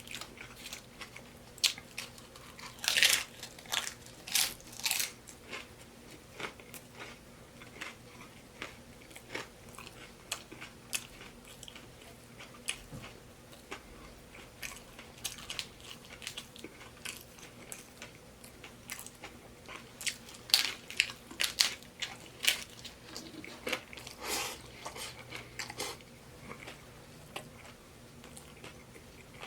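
A person chewing and biting into taco salad, with crisp crunches of the oven-baked tortilla shell; the crunching comes in louder bouts about three to five seconds in and again around twenty to twenty-six seconds in.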